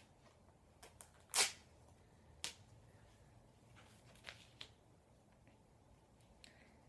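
A few brief rustles and scrapes of hands working on materials, the loudest about a second and a half in, with softer ones later.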